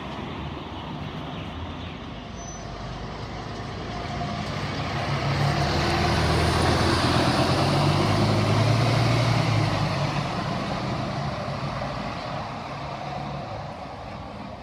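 A Scania city bus pulling away from the stop. Its engine hum builds as it accelerates close past, is loudest a few seconds in, then fades as it drives off up the street.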